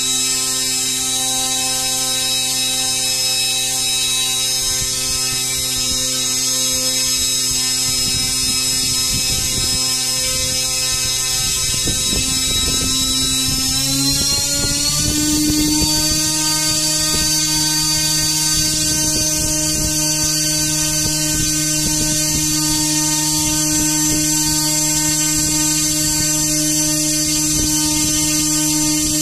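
3D-printed brushless (BLDC) motor running with a steady whine. Its pitch rises a little about halfway through as the motor speeds up, then holds steady at the higher speed.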